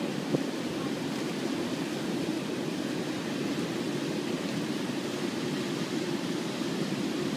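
Steady rush and roar of the floodwater-swollen Otava river pouring over a weir and churning in the standing wave below it. There is one brief click just after the start.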